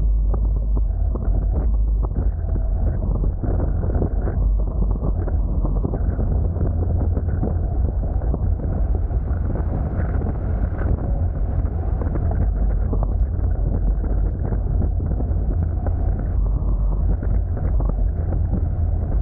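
Heavy wind buffeting the action camera's microphone, a steady loud rumble, aboard a Hobie Tiger F18 sailing catamaran under way, with water rushing and splashing along the hulls in frequent short slaps.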